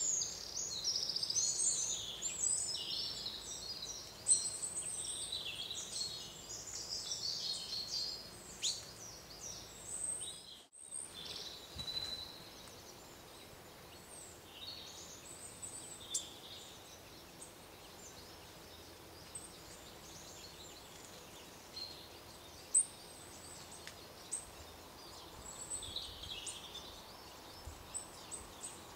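Small woodland songbirds chirping and singing over quiet forest ambience. The calls are busy for the first ten seconds or so, then sparser after a brief gap, with a couple of sharp ticks.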